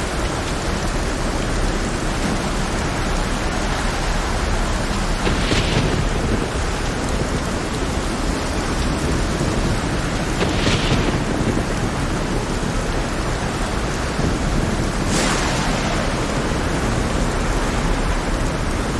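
Heavy rain with a steady low rumble underneath, and three brief hissing swells about five seconds apart, like waves breaking.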